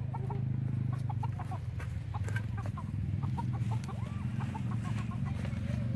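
Chickens clucking, many short calls in quick succession, as a flock is chased around its pen, over a steady low rumble.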